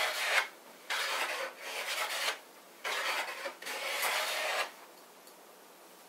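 Wood River hand plane taking short passes along a wooden board, its iron shaving off ribbons of wood: about five strokes in quick succession that stop near the end.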